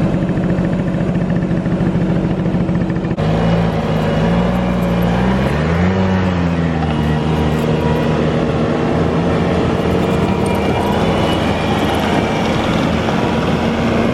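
Skid steer engine running steadily. The sound changes abruptly about three seconds in, then the engine speed briefly rises and falls back before holding steady.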